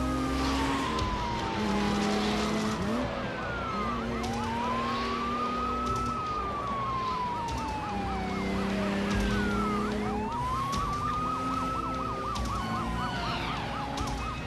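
Police sirens sounding together: one a fast warbling yelp, others slow wails that rise and fall over several seconds. Beneath them, car engines running hard and film-score music with long held low notes.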